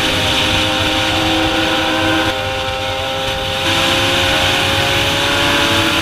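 Sport motorcycle engine running under way, its note climbing slowly, with a short easing about halfway through. A loud rush of riding wind sits over the engine.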